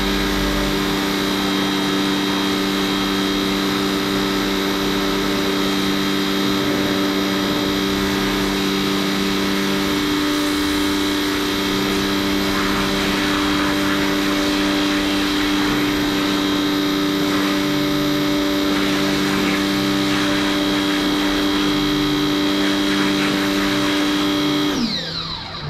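Electric pressure washer running steadily, its motor hum under the hiss of the water spray. Near the end the motor cuts off and winds down with a quick falling pitch.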